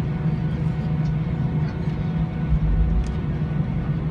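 Steady drone of an airliner's engines and cabin heard from inside the plane as it taxis, with a brief low rumble about two and a half seconds in.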